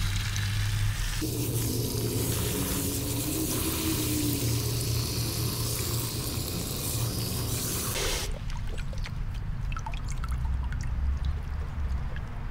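Garden hose spray nozzle spraying water into a bucket of dug clay soil, a steady hiss that stops suddenly about eight seconds in. Faint small pops and ticks follow from the wet soil.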